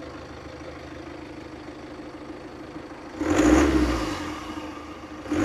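BMW B47 2.0-litre four-cylinder diesel engine idling, revved once about three seconds in and dropping back to idle, with a second rev starting at the very end. It breathes through a freshly fitted Darkside cold air intake.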